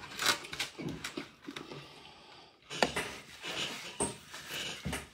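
Close-up eating noises: chewing and mouth smacking with scattered clicks, one sharp click about three seconds in.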